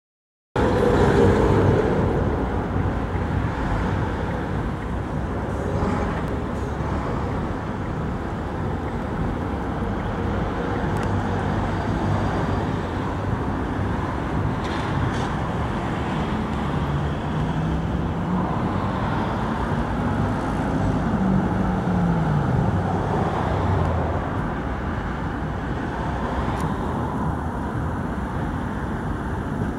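Steady city traffic noise with a Tatra T3SUCS tram running toward the microphone along its track. A pitched motor sound rises and then falls about two-thirds of the way through.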